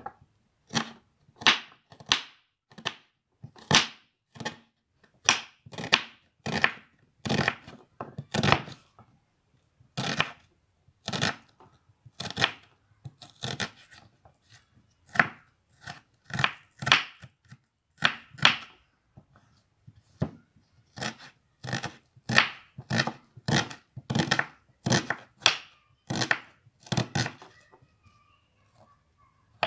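Kitchen knife slicing a red onion on a wooden cutting board: separate cutting strokes about one to two a second, with a couple of short pauses, stopping shortly before the end.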